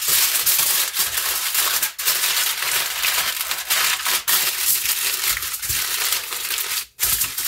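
Aluminium foil crinkling and crumpling steadily as hands fold and wrap it into a packet, with a brief break near the end.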